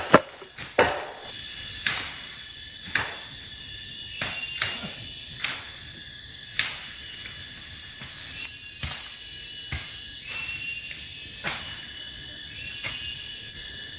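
Steady high-pitched drone of forest insects, with sharp chopping knocks about once a second as wood is cut.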